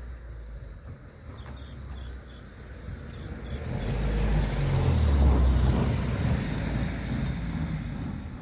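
A vehicle passing: a low rumble that swells to its loudest about five seconds in and then fades. A run of short, high, evenly spaced chirps sounds over the first half.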